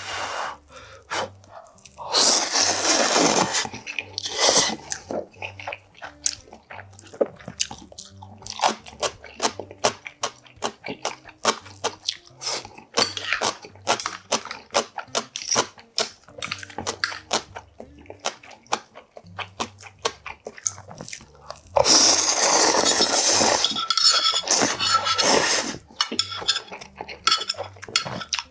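Close-up eating sounds: a person slurping ramen noodles loudly in two long pulls, about two seconds in and again near the end, between chewing, smaller sips and light clinks of chopsticks against a plastic ladle and bowl.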